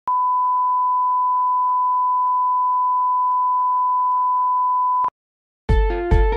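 A steady, pure test-tone beep plays for about five seconds with the colour-bar leader, then cuts off sharply. After a short silence, electronic music with a heavy bass beat starts near the end.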